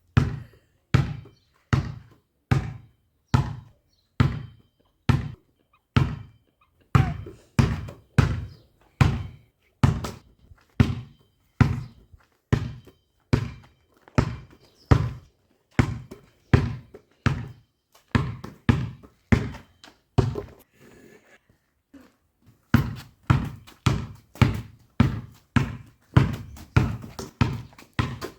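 A ball bounced over and over in a steady rhythm of about two dull thuds a second. The bouncing pauses briefly past the two-thirds mark, then picks up again a little faster.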